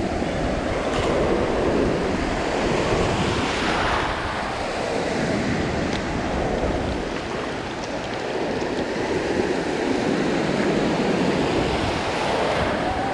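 Small surf waves washing and foaming over shallow water, swelling and easing every few seconds, with wind buffeting the microphone.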